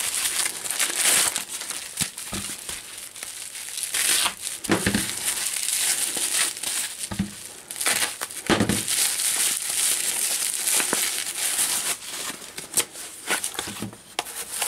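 Plastic courier mailer bag and bubble wrap crinkling and rustling as a parcel is unwrapped by hand, with many short sharp crackles and clicks; near the end a small cardboard box is opened.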